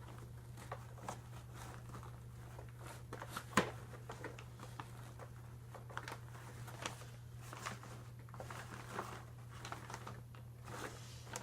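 Crinkling and rustling of a new paper Type A vacuum bag being unfolded and handled, with scattered small clicks and one sharper click about three and a half seconds in.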